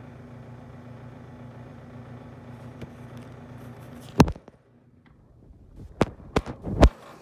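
GE refrigerator running with a steady low hum. About four seconds in, a loud sharp knock cuts in and the hum drops away. A few more sharp knocks follow near the end.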